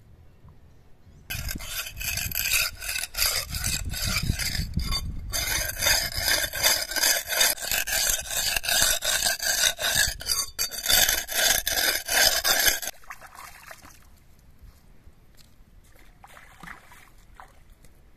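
A large knife blade being ground back and forth on a wet rock to sharpen it: rapid, rasping scrapes that start suddenly about a second in and stop abruptly well before the end, with only a few faint scrapes after.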